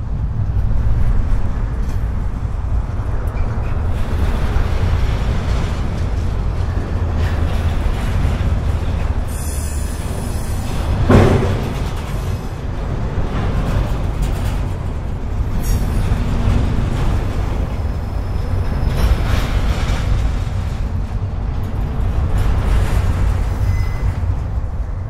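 Norfolk Southern freight train rolling past, a steady low rumble of wheels on rail, with a brief, sharp, louder sound about eleven seconds in.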